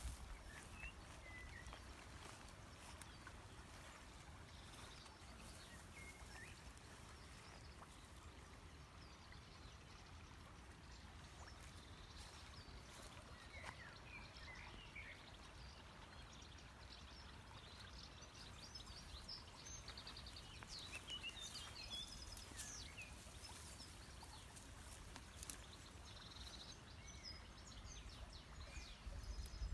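Near silence: faint outdoor ambience with a low wind rumble on the microphone and scattered faint bird chirps, more of them in the second half.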